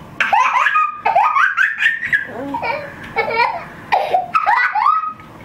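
Baby's high-pitched squealing laughter in repeated short bursts, with pitch sliding up into shrieks, as she reacts to the cold of an ice cream sandwich.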